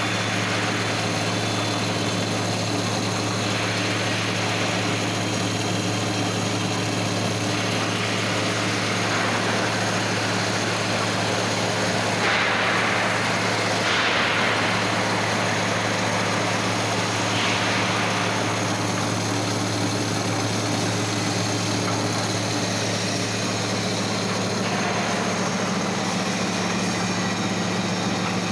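CNC milling machine running steadily with a constant motor hum, and a hissing cutting noise that swells for a few seconds at a time, several times over.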